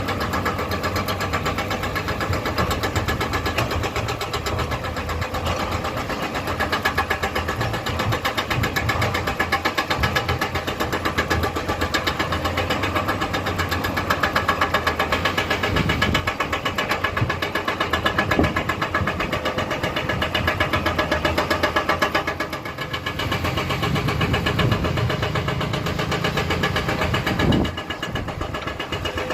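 Komatsu hydraulic excavator's diesel engine running steadily while it digs and loads rock. The level drops briefly a few seconds before the end, and there is a single sharp knock near the end.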